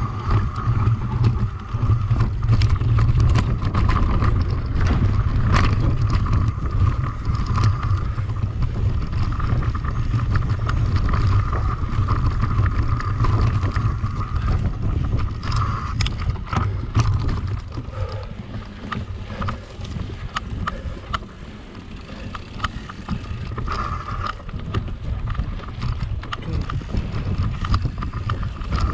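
Riding a mountain bike in a race: wind buffeting the camera's microphone and the bike rattling and clicking over bumps in the trail. It eases for a few seconds about two-thirds through.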